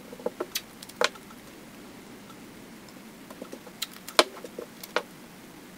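Hands taping thin mylar film down onto a plastic cutting mat with pieces of blue painter's tape: scattered small clicks and crinkles, the loudest about a second in and about four seconds in.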